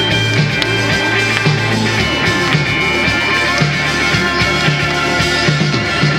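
Live band playing an instrumental passage on keyboards and guitar over a steady low beat of about two pulses a second.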